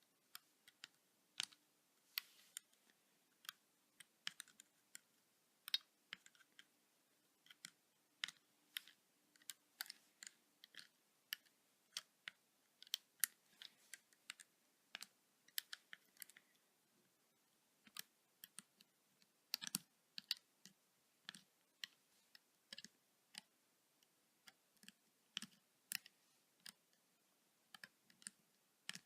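Light, irregular clicks and ticks of a plastic loom hook against the Rainbow Loom's plastic pegs while rubber bands are picked up and looped forward, one to three clicks a second.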